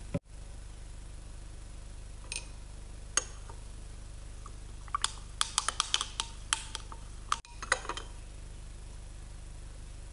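Light, sharp clicks and clinks of kitchen utensils and dishes being handled: a few single taps, then a quick cluster of clinks in the middle and another just after, over a steady low hum. The sound drops out briefly twice.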